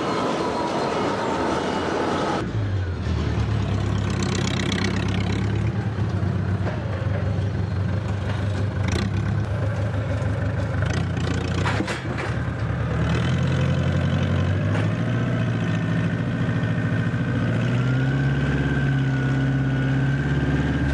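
Forklift engine running steadily while it handles a hot-forged flange ring, with a couple of sharp metal knocks in the middle and a whine that rises near the end.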